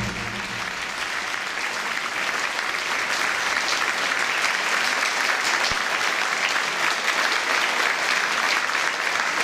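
Audience applauding, swelling slightly over the first few seconds and then holding steady.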